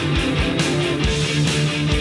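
Rock music with guitar over a steady, loud beat.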